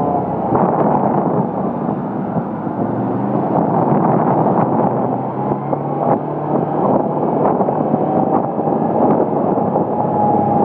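Vehicle engine running steadily while driving, with wind buffeting the microphone. A higher whine rises and falls near the end.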